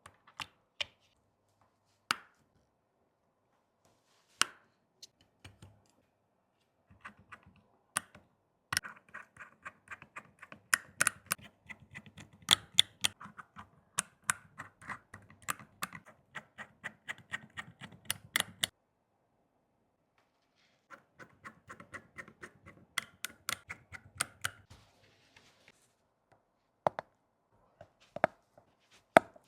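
Small sharp clicks and scraping of repair tools working on an iPhone 14 Pro Max: a few scattered clicks, then two long runs of rapid clicking.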